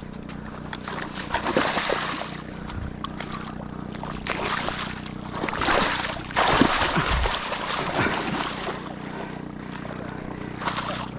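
A hooked doncella catfish thrashing in shallow water, splashing in irregular bursts, with a steady low hum underneath.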